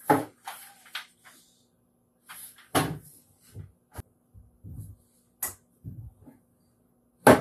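Wooden boards being handled on a workbench: irregular knocks and clatter, with a sharp knock near the end.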